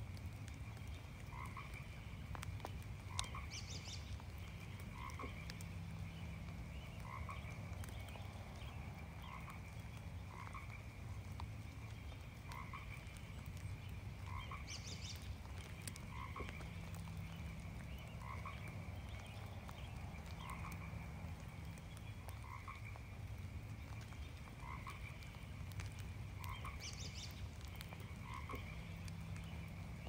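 Frogs calling in a chorus: one repeats a short call about every second and a half over a steady stream of higher chirping from others, with a soft hiss of light rain beneath. A brief, higher-pitched call cuts in three times, about twelve seconds apart.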